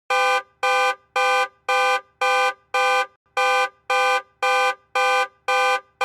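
Car alarm honking the car's horn in a rapid, even series of short blasts, about two a second.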